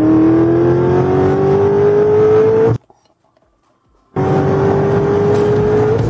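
Car engine accelerating, its note rising steadily. It cuts off abruptly about three seconds in, and after about a second of silence a second acceleration starts, again rising steadily.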